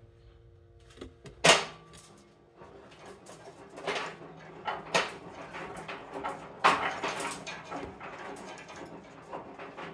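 Metal tools being handled in a workshop: a sharp clank about a second and a half in, then scattered knocks and scraping.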